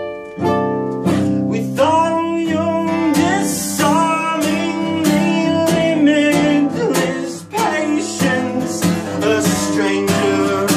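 Steel-string acoustic guitar played with a man singing over it, a song in progress; the guitar drops back briefly at the start and then picks up again with the voice about a second in.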